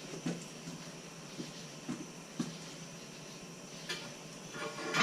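Dirt bike wheel handled onto a steel tire-changing stand: a few light knocks, then a louder metallic clank with brief ringing near the end as the wheel seats on the stand's post.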